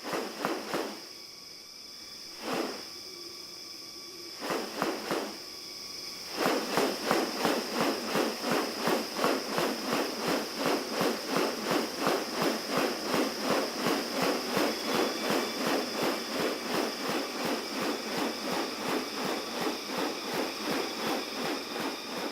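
Rainforest insects droning on a steady high tone. A few short noisy sounds come early, and from about six seconds in an even train of short noisy beats, about three a second, runs over the drone.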